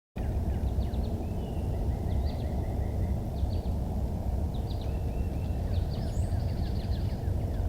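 Outdoor ambience: a steady low rumbling noise, with small birds chirping on and off over it.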